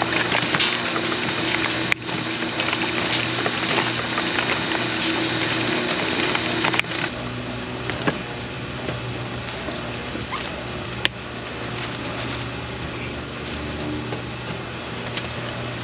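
Electric pot-filling machine running with a steady hum while loose potting soil pours and patters through its hopper and conveyor. Three short sharp clicks break in along the way.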